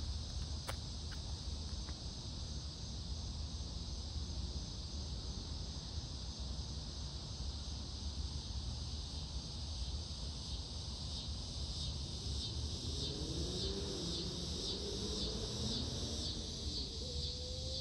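A steady high-pitched chorus of insects, pulsing about twice a second in the second half, over a low rumble. A faint hum that glides up and down comes in during the last few seconds.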